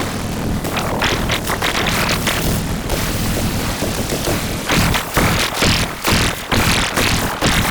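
Music over a steady low drone, with a dense pulsing rhythm coming in about five seconds in.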